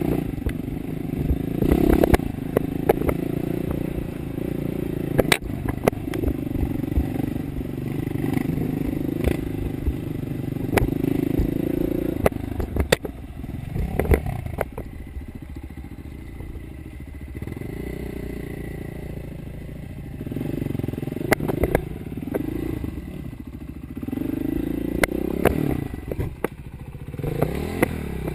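Enduro dirt bike engine running and revving up and down over rough ground, with frequent clattering knocks from the bike. For several seconds in the middle the engine runs quieter at low revs before picking up again.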